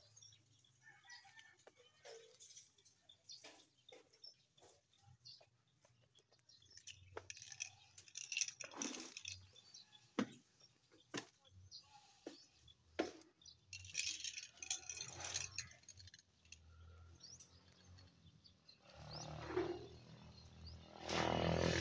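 Faint, scattered knocks and clatter of broken rock, busiest in the middle, as a bucket of stone hauled up from a well being dug deeper is tipped onto a rubble pile. A louder rushing noise comes in near the end.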